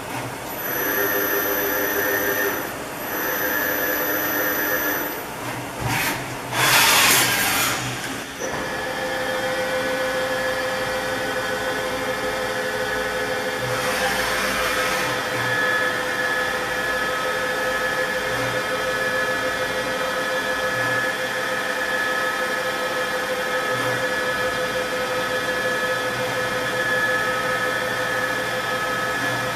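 Dahlih MCV 1020 BA CNC vertical machining centre running a program. Two short whines come in the first five seconds, then a loud noisy burst about seven seconds in. After that the spindle runs at 1000 rpm with a steady whine.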